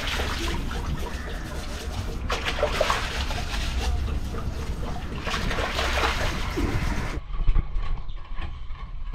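Water splashing and sloshing with a steady low rumble underneath. About seven seconds in the splashy hiss drops away and the sound turns muffled, leaving mostly the rumble.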